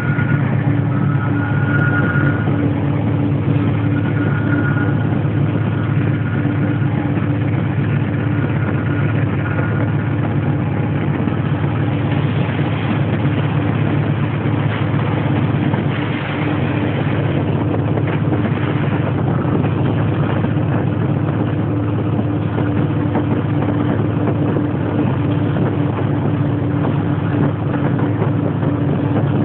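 Diesel locomotive engine running steadily under way, heard from the cab, a constant low hum mixed with the rumble of the train rolling on the rails.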